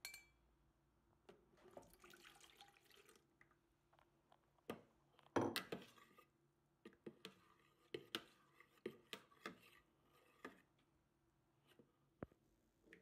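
Faint kitchen sounds: warm milk poured from a small enamel pan into a plastic tub, then a metal fork stirring and mashing fresh yeast, clicking and tapping against the tub. The loudest is a single knock about five and a half seconds in.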